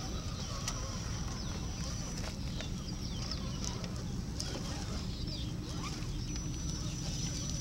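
Outdoor ambience: short bird-like chirps over a steady low rumble, with a thin steady high-pitched tone and faint distant voices.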